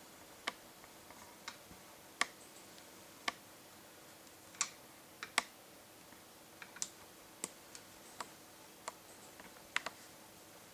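Small sharp clicks at an uneven pace, about one or two a second, over a faint steady hum.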